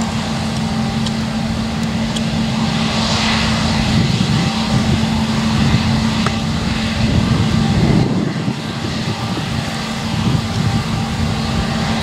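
New Holland CR9.90 combine harvester running steadily while harvesting wheat, a continuous engine and threshing drone with a constant low hum.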